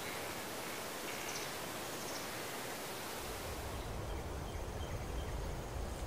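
Outdoor rural ambience: a steady rustling hiss of wind through grass and flowering plants, with a few faint high chirps. About three seconds in, a low wind rumble on the microphone sets in.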